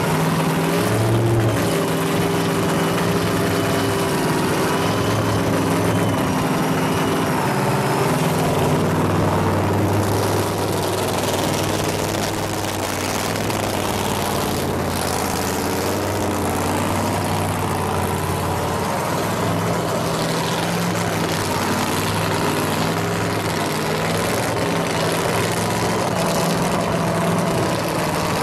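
Pro Mod Corvette drag car's race engine running at a steady idle, loud and even, with no big revs.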